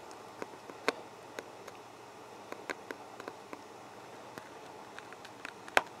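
Scattered small sharp clicks and ticks from a blade being pressed down on a photo-etch fret in a photo-etch cutting tool, the loudest about a second in and near the end.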